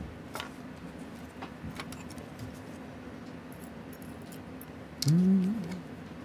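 Faint, sparse little metal clicks and taps of a tool on a small watch movement. About five seconds in comes a short hummed voice sound, wavering in pitch.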